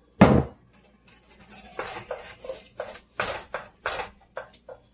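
A glass olive-oil bottle is set down on the counter with one sharp knock. Then a wooden spoon stirs and scrapes ground chicken in hot oil in a stainless steel pot, with irregular scrapes and taps.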